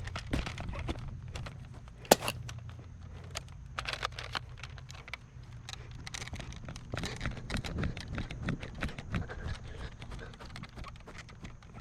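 Irregular clicks and taps, with one sharp, loud click about two seconds in, over a steady low hum.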